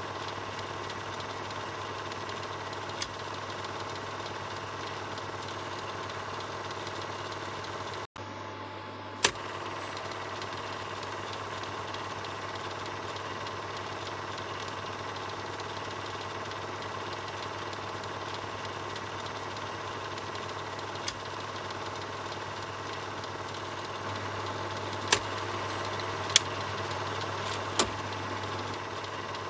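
Film projector running steadily: a continuous mechanical whir with a low hum, broken by a few sharp clicks. About eight seconds in the sound cuts out for a moment and comes back with a click.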